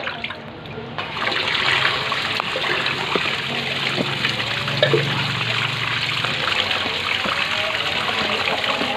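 Running water splashing steadily, starting about a second in, with a low hum beneath it for the first several seconds.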